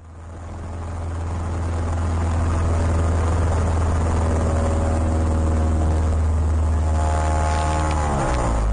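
Human G-training centrifuge machinery running with a loud, steady low drone and a stack of overtones. It swells up over the first two or three seconds, then holds, and its pitch slides down near the end.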